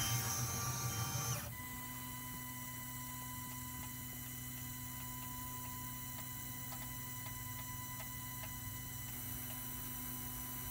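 Roland MDX-40 CNC mill's motors running during its automatic Z-origin detection, stopping about a second and a half in. A steady electrical hum with a few faint ticks is left.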